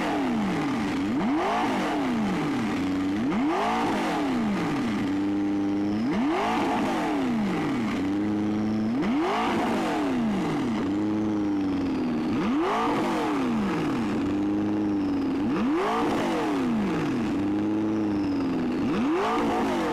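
McLaren 650S's twin-turbo V8 being revved hard while standing still, about eight times: each time the pitch shoots up and falls back, with the engine settling to a high idle between blips. The revs reach about 7000 rpm.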